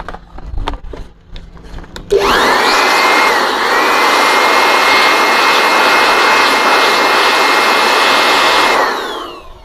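A small electric blower motor with a high whine is switched on about two seconds in, spins up, and runs steadily with a loud airy rush. It winds down near the end. A few light handling clicks come before it.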